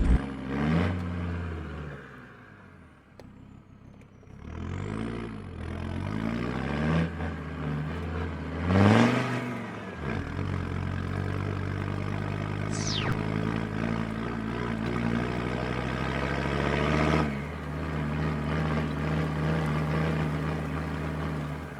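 Land Rover Defender Td5 five-cylinder turbodiesel engine, remapped for more power, revving up and easing off several times, then held at fairly steady revs under load. A short high squeal falls in pitch about halfway through.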